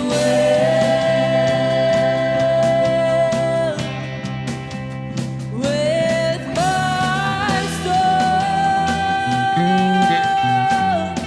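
Worship band playing a slow worship song, with a singer holding two long notes over guitar and drums.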